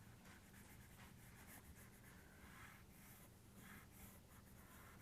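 Faint scratching of rough sketching strokes on paper, repeated irregularly, over a faint low hum.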